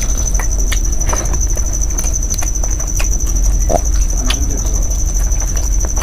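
Close-up hand-eating sounds: wet chewing, lip smacks and fingers squishing rice and mutton curry on a plate, heard as scattered sharp clicks. Under them run a steady high-pitched tone and a low hum.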